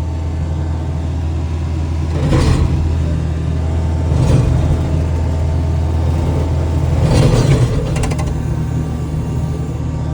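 Skid steer engine running steadily while its brush cutter works into a tree, with three louder, rougher surges about two, four and seven seconds in as the cutter bites into the wood, and a few sharp clicks near the end.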